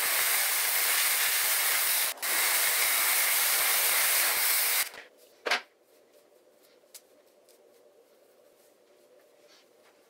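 Zuvi Halo hair dryer blowing a steady rush of air. It breaks for an instant about two seconds in and shuts off just before five seconds, followed by one brief noise.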